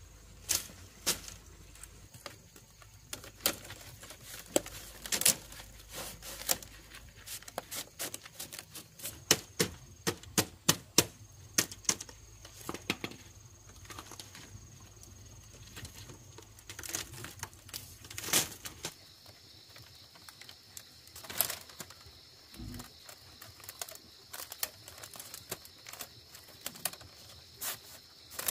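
Irregular sharp taps and knocks, some in quick clusters, thickest around ten seconds in, over a faint steady high tone.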